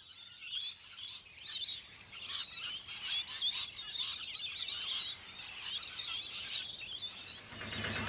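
A flock of rainbow lorikeets chattering and screeching, with many short high-pitched calls overlapping.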